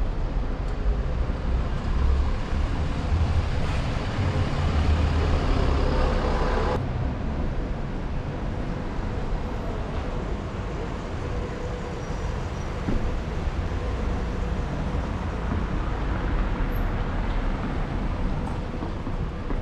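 Town-centre road traffic: vehicles running and passing, a continuous low rumble. It is louder and brighter for the first seven seconds, then drops abruptly.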